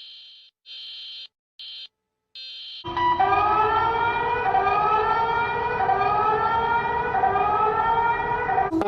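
Emergency Alert System alert audio: several short bursts of a high buzzy tone separated by silent gaps, then, about three seconds in, a loud alarm tone whose pitch sweeps upward over and over, about once a second, over a steady tone.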